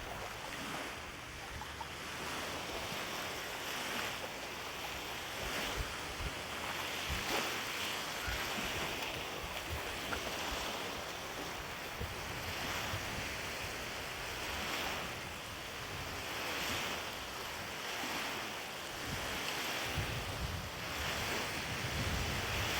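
Small lake waves washing against the shore in a strong wind, swelling every second or two, with wind rumbling on the microphone, heaviest near the end.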